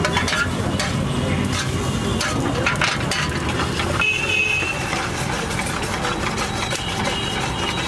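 Steady rumble of street traffic, with a metal spatula clicking and scraping against an iron frying pan through the first three seconds or so. A short, high-pitched tone sounds about four seconds in.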